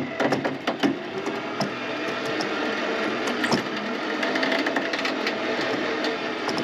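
Electric trailer winch motor running steadily, with scattered clicks and knocks, most of them in the first second.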